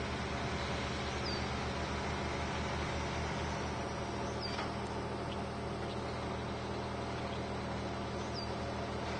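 Truck engine running steadily under load as it tows a house on a trailer, a low drone with a throb that evens out about three and a half seconds in, over a steady hiss. A few short, high chirps come every few seconds.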